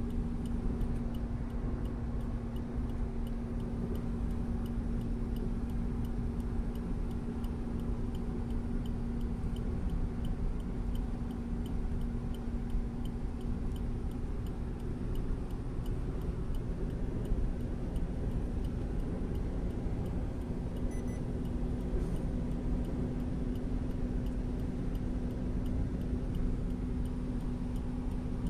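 Car cabin noise at steady highway speed: a steady engine drone over low road rumble, with a light, evenly spaced ticking.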